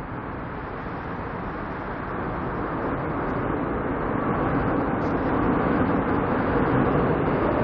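Seoul Subway Line 7 train approaching across Cheongdam Bridge, heard from beneath the bridge: a steady rumble that grows gradually louder.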